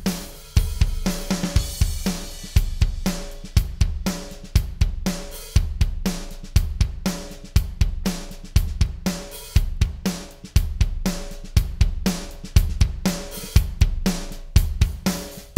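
A drum kit groove of kick, snare, hi-hat and cymbals playing in a steady repeating pattern, run through an Empirical Labs Arousor compressor on the drum bus. The compressor is pushed harder during the passage as its ratio goes from 3:1 to 6:1 and its input is raised to 7 dB.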